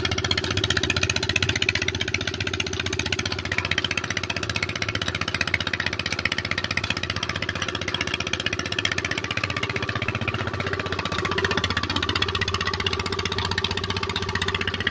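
A belt-driven tubewell water pump's stationary engine running steadily with a fast, even beat, over the rush of water gushing and splashing into a brick tank.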